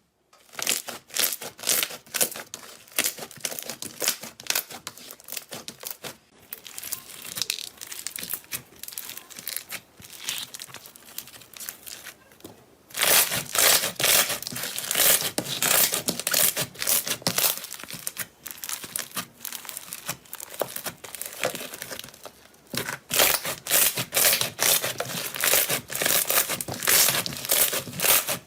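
Slime being squeezed and pressed by hand: a dense, irregular run of crackling and popping, louder in a stretch about halfway through and again near the end.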